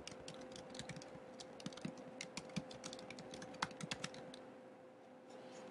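Typing on a computer keyboard: a quick, irregular run of key clicks for about four seconds, then a few scattered keystrokes near the end.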